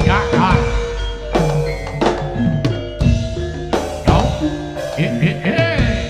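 Live jaranan ensemble music: hand drums striking a heavy beat about once a second over steady ringing gong-chime and metallophone tones, with a wavering high melodic line near the start and again near the end.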